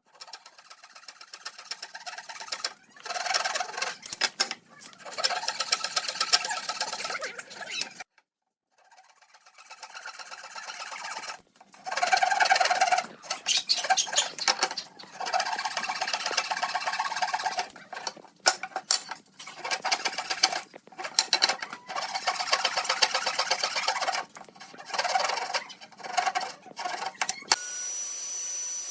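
A small power tool chattering quickly on wood in repeated bursts of one to three seconds, with brief pauses between them.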